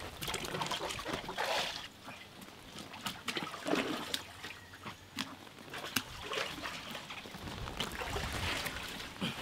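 Water splashing and trickling in a large aluminium pot as wet watermelons are lifted out of their wash water, in several separate splashes with a few short knocks between them.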